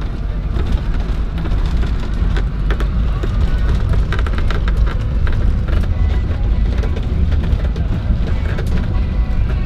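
Van driving on a rough gravel road, heard from inside the cab: a steady low rumble from engine and tyres, with light rattles. Music plays over it.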